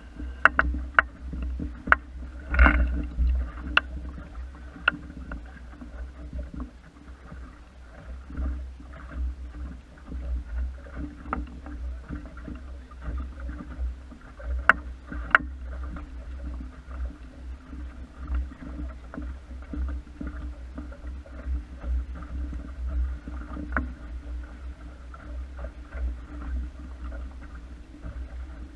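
Water lapping and splashing along the hull of a small wooden sailing dinghy under way, over a steady low rumble. Scattered sharp clicks and knocks from the boat come through, several in the first few seconds and a pair about halfway through.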